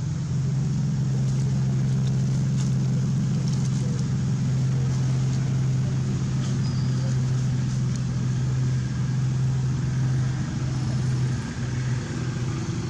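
A steady low engine hum, like a motor running at idle, with a brief dip about eleven and a half seconds in.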